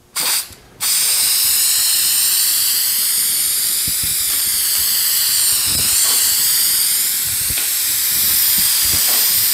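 Aerosol can of spray adhesive hissing: a short squirt, then a long continuous spray from about a second in, its hiss wavering slightly in tone as the can sweeps over the cardboard panels.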